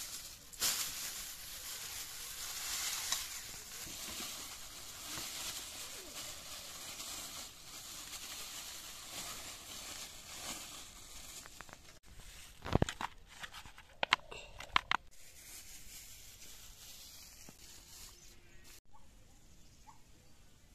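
Thin black plastic bag rustling and crinkling as it is opened by hand to take out fresh fish. About two thirds of the way through, a handful of sharp clicks or knocks come in quick succession.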